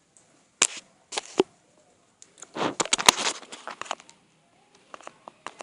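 Handling noise close to the microphone: a few sharp knocks in the first second and a half, then about a second of crackling, rustling clatter, then scattered small clicks.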